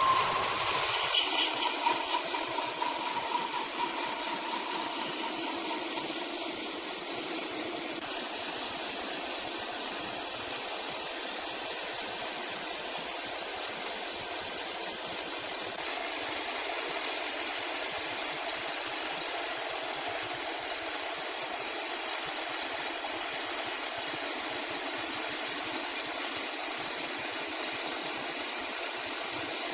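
Sawmill machinery running steadily, a continuous mechanical noise with a rattle.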